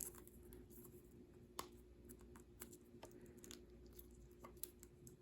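Faint, scattered ticks and crinkles of fingernails picking at the shrink wrap on a tarot card box, with a sharper click about a second and a half in.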